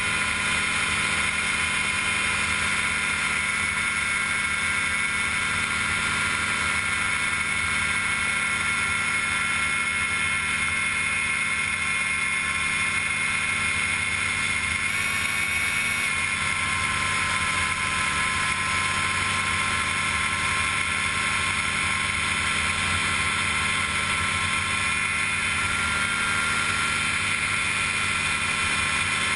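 Gyrobee ultralight gyroplane's engine and propeller running steadily in flight, with a slight drop in pitch about halfway through.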